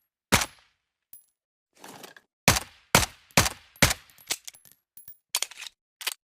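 Suppressed .45 ACP M1911 pistol firing a string of sharp shots, the loudest about half a second apart in the middle, with lighter mechanical clacks and short metallic clinks between and after them.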